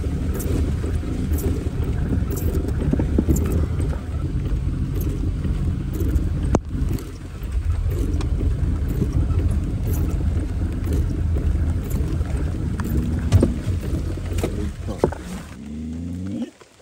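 Four-wheel-drive ute's engine running as it drives slowly across a wet paddock in the rain, heard from inside the cab. The engine sound cuts off near the end.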